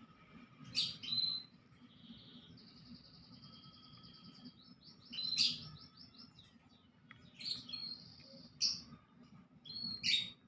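Small birds chirping: a series of sharp high chirps, with a quick run of repeated notes in the middle, over a faint steady low rumble.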